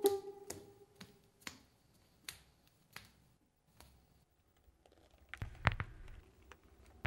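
Soft taps about every half second, slowing and fading over the first four seconds, the first few with a short ringing note. About five and a half seconds in comes a cluster of louder knocks with a low thud.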